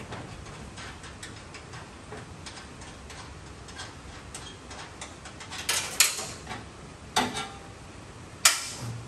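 Sheet-metal radiator core support on a 1970 Plymouth AAR Cuda body being worked loose by hand: light metallic ticking and rattling, then about four sharp metal clanks in the second half.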